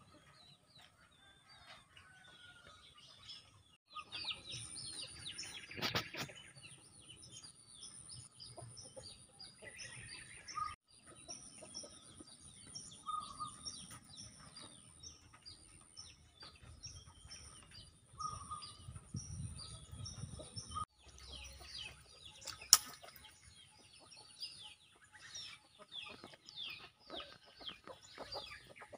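Birds chirping in quick short calls, with chickens clucking, over a thin steady high-pitched tone. A single sharp click stands out about three-quarters of the way through.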